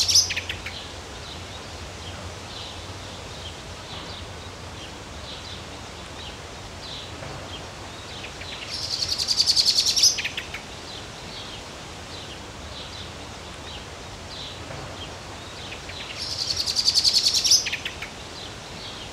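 Songbirds singing: one bird gives a loud, rapid trilled song phrase three times, about every seven to eight seconds, with softer scattered chirps from other birds between.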